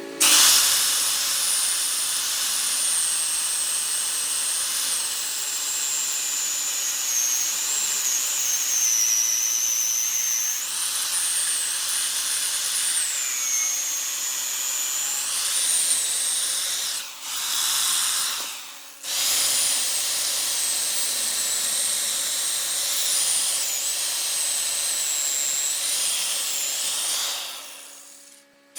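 Power woodworking tool running, a high whine that slides up and down over a steady hiss. It drops out briefly twice in the second half and fades away near the end.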